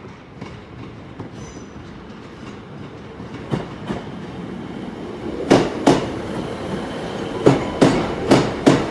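A pair of coupled Class 150 Sprinter diesel units rolling slowly into the station, a steady rumble growing louder. From about halfway in, the wheels click over rail joints in pairs of knocks.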